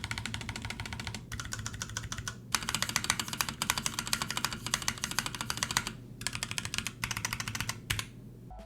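Typing on an Akko 3068B Plus mechanical keyboard fitted with Akko Jelly Purple tactile switches: rapid runs of keystrokes broken by short pauses, stopping shortly before the end.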